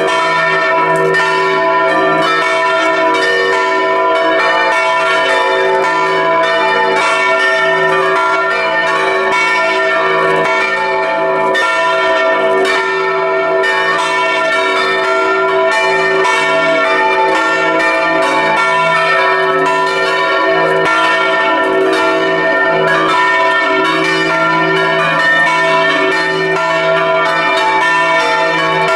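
Several swinging bronze church bells ringing together in a continuous peal, heard close up inside the belfry: their strokes overlap and their tones hang on over one another.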